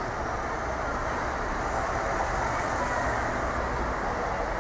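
Steady road traffic noise from cars and a van moving slowly along a city street, with engines and tyres running together in a continuous rumble that swells a little in the middle.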